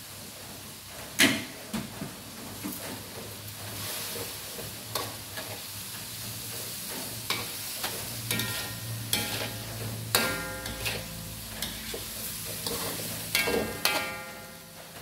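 Shrimp and squid stir-frying in a metal wok: a steady sizzle under repeated scrapes and knocks of a metal spatula against the pan. The loudest is a sharp knock about a second in, and a few scrapes later on ring with a tone.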